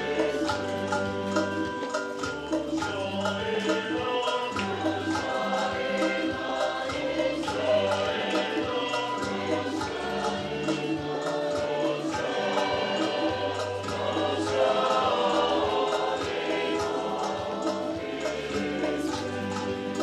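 A choir singing a hymn over instrumental accompaniment, with stepped bass notes and a steady percussion beat.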